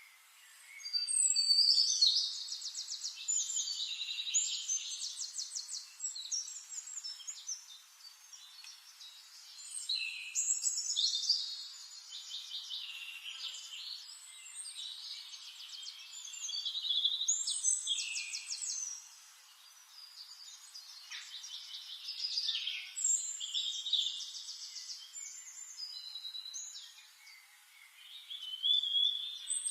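A songbird singing long, intricate phrases of rapid trills and warbles, high-pitched, repeating about every six to eight seconds with short pauses between.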